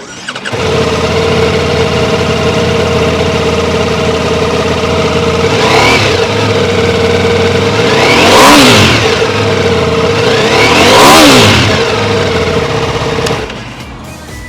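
Ducati Multistrada V4 Rally's V4 engine starting up and idling, then revved three times: one short blip and two big revs that climb and fall back to idle. The engine is shut off near the end.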